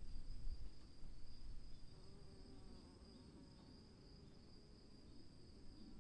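Insects trilling steadily at one high pitch, over a low rumble of distant thunder that eases off after the first second or so.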